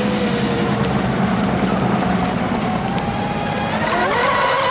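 Radio-controlled speedboat running fast across the water, its motor a steady high-pitched drone that drops in pitch near the start and climbs again near the end.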